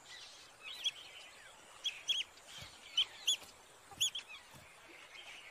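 Smooth-coated otters chirping, short high-pitched calls repeated about once a second, often two or three in quick succession: alarm calls as a tiger approaches.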